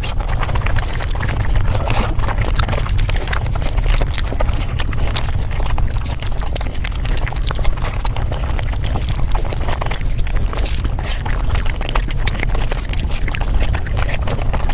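Close-miked eating sounds sped up about five times: rapid, dense clicks of chewing and mouth smacking over a steady low rumble.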